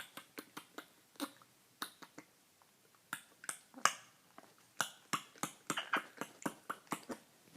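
A quick, irregular series of sharp clicks, a few a second, with a short pause partway through.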